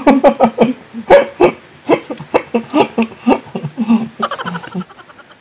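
People laughing in a run of short, quick bursts, fading toward the end.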